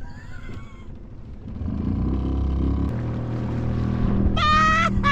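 A boat's outboard motor starts about two seconds in and runs steadily, getting louder. Near the end, loud pitched notes begin in short repeated blasts.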